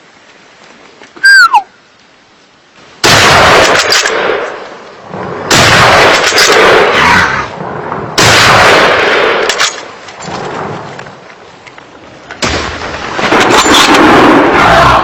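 A bird gives one short falling whistle. Then loud hunting-rifle shots fired at a brown bear come every two to three seconds, each with a long fading echo.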